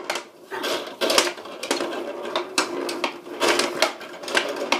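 Tabletop mini foosball game in play: plastic rods rattled and spun, clacking in irregular knocks as the little players strike the ball and the table's sides.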